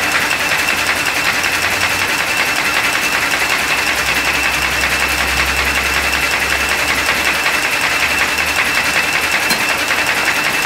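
Paper folding machine running steadily, a fast, even mechanical clatter as it feeds and folds printed leaflets onto its delivery conveyor.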